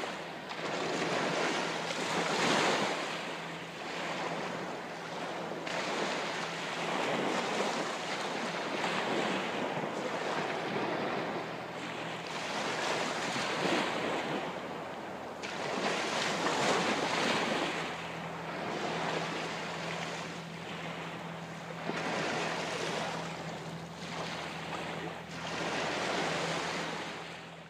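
Sea waves washing in on a rocky shore, each surge swelling and falling back every few seconds, over a faint steady low hum. The sound fades out at the very end.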